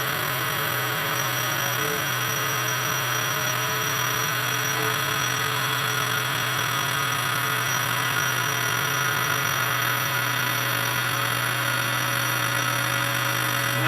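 Milling machine taking a steady cut along the edge of a thick steel plate with a three-insert cutter: a continuous cutting noise over a steady motor hum, with fine high whines.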